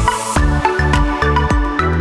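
Electronic background music with a steady beat, deep bass notes and a bright swell of noise at the start.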